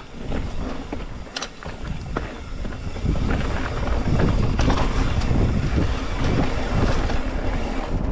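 Mountain bike riding over a rocky trail: a steady rumble of tyres on rock and bike rattle, with wind on the microphone and scattered knocks, getting louder about three seconds in.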